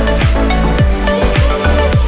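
Background music: an upbeat electronic dance track with a pounding kick drum about twice a second and a deep bass line.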